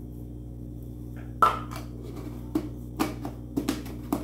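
Five or six short, light knocks and clinks of utensils against dishes, the loudest about a second and a half in, over a steady low hum.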